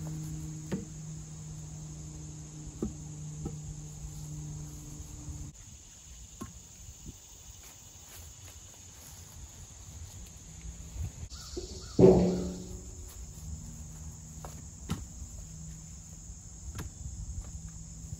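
Split firewood pieces knocking and clunking as they are set down one by one on a growing woodpile, with one loud wooden clunk about twelve seconds in. A steady insect chorus runs underneath, and a low hum stops about five seconds in.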